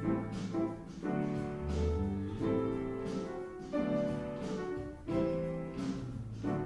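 Live instrumental jazz groove from musicians jamming, with chords and notes struck one after another.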